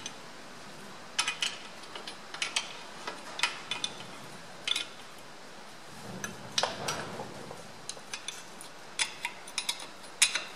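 Hand wrench working steel nuts on a tractor's axle housing flange: short runs of ratchet clicks and metal clinks, in small bursts with pauses between.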